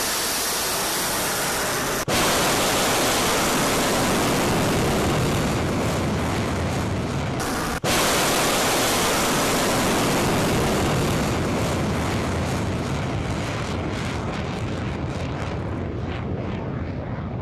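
Short-range ballistic missile's rocket motor at launch: a loud, steady rush of noise that breaks off for an instant twice, then slowly fades and dulls as the missile climbs away.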